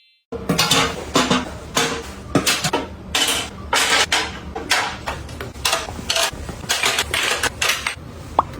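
Household items being handled and set down in a kitchen: a busy run of clicks, light knocks and rustling, about two or three a second, with a couple of short pings near the end.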